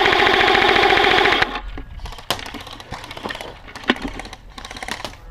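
Airsoft rifle firing a rapid full-auto burst close by, a fast even rattle of shots that stops about a second and a half in. A few scattered sharp cracks follow.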